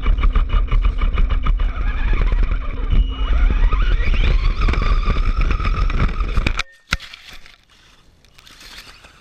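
Electric RC car driving fast over rough ground, heard up close: a loud rumble and rattle with a motor whine that rises in pitch about three to four seconds in. It stops abruptly about six and a half seconds in, followed by a single click.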